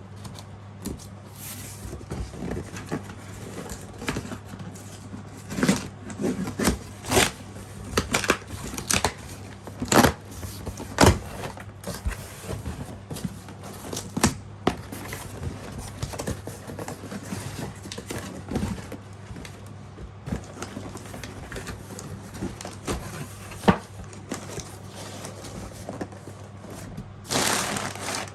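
A cardboard box and its packaging being handled and opened: irregular taps, knocks and crinkling, with a longer rustling rush near the end, over a steady low hum.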